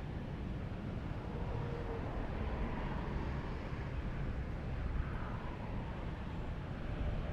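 Steady low rumble of distant vehicles, with faint engine tones that drift slightly in pitch.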